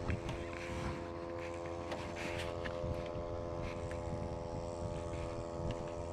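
A small boat engine running at a steady, even pitch, with wind and water noise and a few small clicks.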